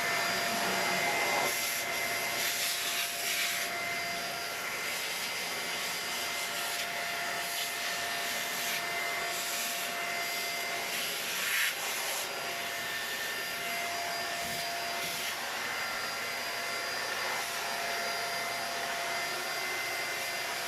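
Deerma DX700 vacuum cleaner running steadily with a high, even whine. There are a few brief rubbing noises, a couple of seconds in and again about halfway through.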